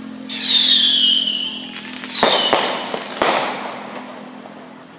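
Whistling fireworks going off: a sudden shrill whistle that falls in pitch, then about two seconds in a second falling whistle with three sharp cracks, dying away near the end.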